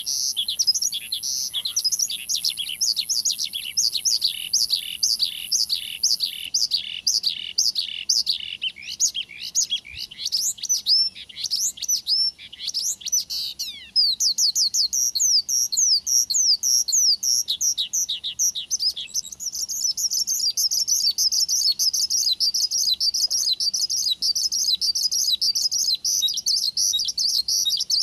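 Branjangan (Javan bush lark) singing: a long, rapid run of high, down-slurred notes, turning about halfway through into a faster, denser twittering song.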